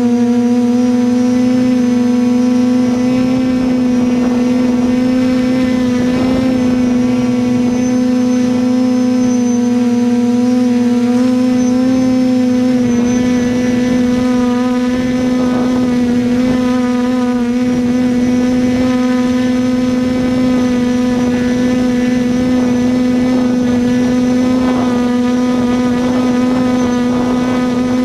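Quadcopter's electric motors and propellers humming steadily, heard close up from the drone's own onboard camera. The hum is one steady pitch with a stack of overtones and barely changes.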